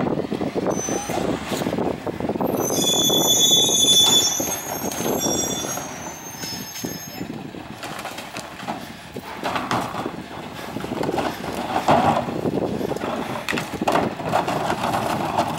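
Peterbilt 348 CNG garbage truck pulling up, its brakes squealing in several high tones for a few seconds before it stops. Later come knocks and clatter as plastic wheeled carts are tipped into the McNeilus rear loader's hopper.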